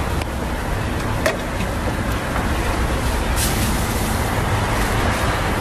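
Steady street background noise with a low traffic-like rumble and hiss, and one short sharp click about a second in.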